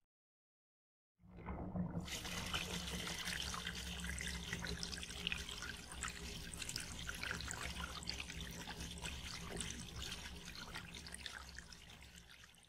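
Water running and pouring steadily. It starts about a second in and fades slowly toward the end.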